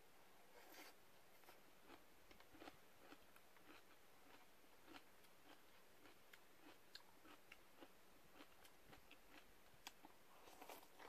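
Faint slurping and chewing of noodles eaten from a paper cup with chopsticks, with many small clicks. A slurp comes about a second in and another near the end.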